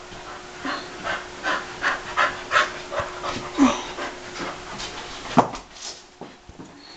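A dog panting rapidly, about three breaths a second, during play. About five seconds in comes one sharp knock, the loudest sound.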